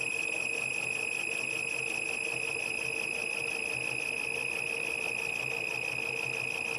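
Electronic speed controller of an RC model truck giving a steady high-pitched squeal as it drives the motor, with a faint, even low pulsing underneath.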